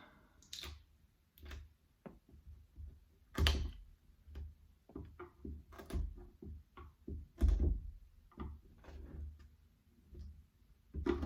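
Screwdriver prying and chipping wood out of a half-depth hole-saw cut in a solid wooden door: irregular scrapes, clicks and knocks, a louder knock about three and a half seconds in and another near seven and a half seconds.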